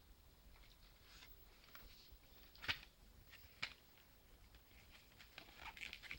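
Plastic CD jewel case being opened by hand: two sharp plastic clicks about a second apart, with faint tapping and scraping of the case around them.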